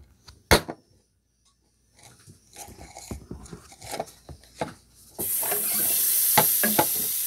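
A plastic cup knocked and handled on a counter, with one sharp knock about half a second in and lighter clatter after; then, about five seconds in, a steady rush of water running from a tap starts suddenly.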